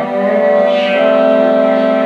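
Music with held, sustained chords that change to a new chord about a second in.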